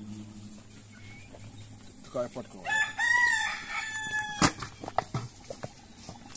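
A rooster crows once, a long pitched call lasting about a second and a half, starting nearly three seconds in. A single sharp knock follows right as the crow ends.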